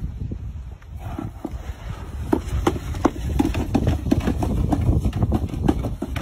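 Hard plastic sled dragged by a rope over wooden steps and paving stones, scraping and clattering with a run of quick knocks that grows busier about two seconds in, over a steady low rumble.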